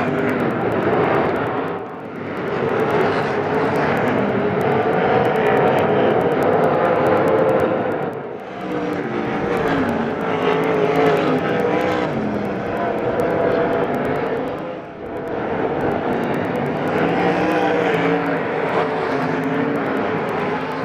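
A field of winged sprint cars racing, their V8 engines running hard at full throttle. The engine note swells and falls as the cars lap, with a dip in level about every six to seven seconds.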